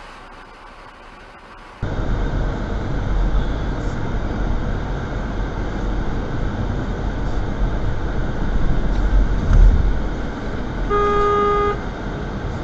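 Steady low road and engine rumble from inside a moving car, then a single car horn blast of under a second near the end.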